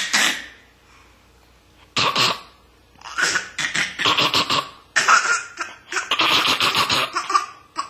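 A baby boy making his silly noise, a fake cough: a single cough, another about two seconds later, then a longer run of quick coughing and laughing sounds.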